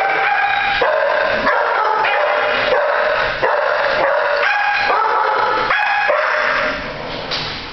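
Several dogs in shelter kennels barking and yelping at once, a dense, unbroken chorus of overlapping calls at different pitches that eases off a little near the end.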